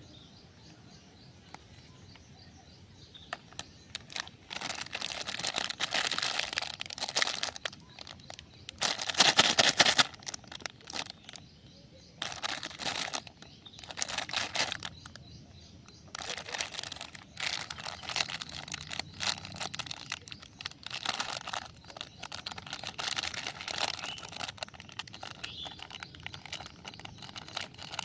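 Plastic candy wrappers crinkling and rustling in bursts as they are handled and torn open, starting a few seconds in and loudest about ten seconds in.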